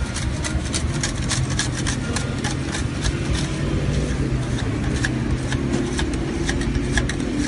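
A motor running steadily, with many sharp clicks and scraping over it, the clicks densest in the first few seconds.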